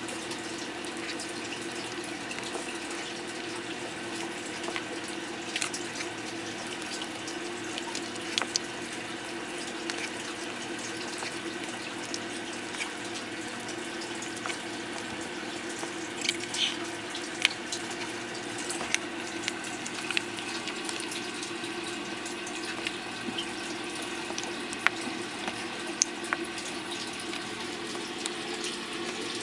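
Steady running water with a low pump-like hum. Scattered sharp light clicks come through it, more often in the second half, as the box turtles peck at pellets in the plastic dish.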